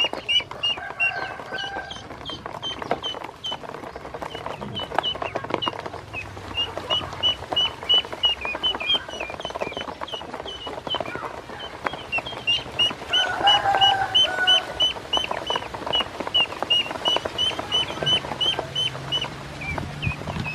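A group of domestic ducklings peeping steadily, short high calls about three a second, over small clicks of bills pecking feed in a plastic basin. A few lower, fuller calls come in briefly near the start and again about two-thirds of the way through.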